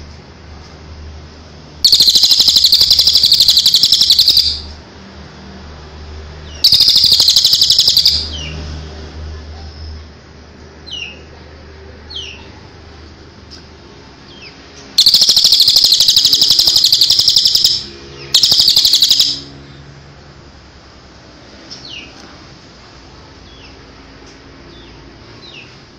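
Crested jay (cililin) giving its 'tembakan' (shooting) call: a very fast, high rattle in four loud bursts, each one to three seconds long. Short faint chirps come in the gaps.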